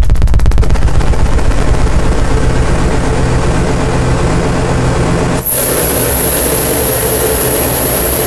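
Harsh noise music: a loud, dense wall of distorted electronic noise that begins as a fast, even stutter and thickens into a steady roar. About five and a half seconds in it cuts out for an instant, and a piercing high whine joins on top.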